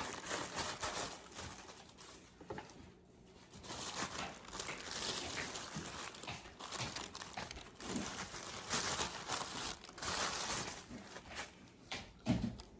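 Packaging crinkling and rustling as it is handled while the shoes are unwrapped, with a brief lull about three seconds in.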